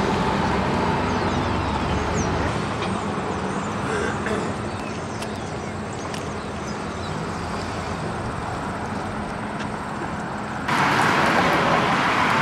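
A pickup truck's engine running as it drives past on the street, fading over the first few seconds into quieter outdoor traffic ambience. Near the end the sound jumps suddenly to louder outdoor noise.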